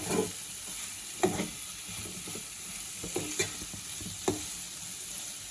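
Chicken liver masala frying dry in a pan with a steady sizzle, while a spoon stirs it, scraping and knocking against the pan about five times.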